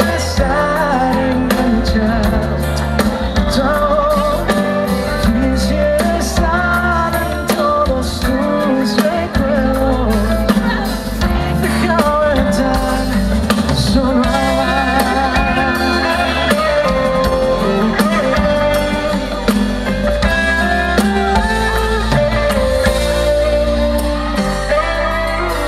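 Live band playing a romantic pop ballad, with a sung lead vocal over a steady drum beat.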